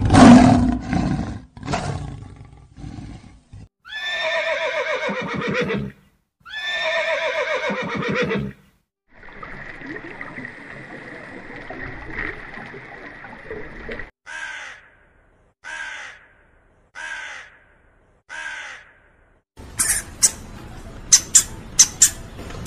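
A run of different animal sounds, one after another: a loud lion call at the start, two long calls that fall in pitch, a steady hum, five short calls a little over a second apart, then quick clicks and squeaks from a rodent near the end.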